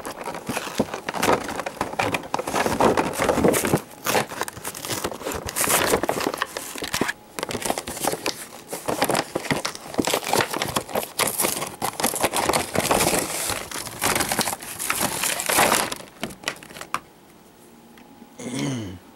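Toy packaging torn open by hand along the box's perforated dotted line, with continuous crinkling and crackling of the cardboard and plastic insert. It stops about sixteen seconds in.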